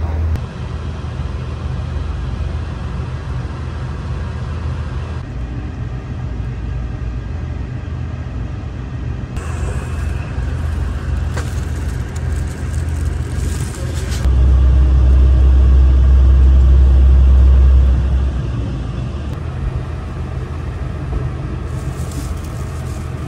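Low, steady rumble inside the passenger car of a KTR 8000 series diesel train. It grows clearly louder and deeper for about four seconds in the middle, then settles back.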